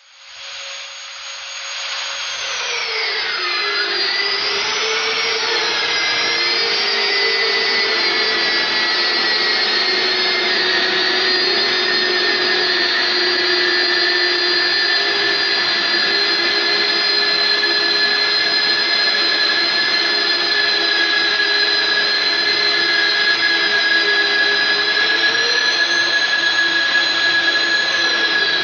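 Promotech PRO-36 Auto magnetic drill's electric motor starting up with a high whine. A couple of seconds in, its pitch drops as the annular cutter comes under load, and it then runs steadily while drilling. Near the end the pitch rises briefly and falls again.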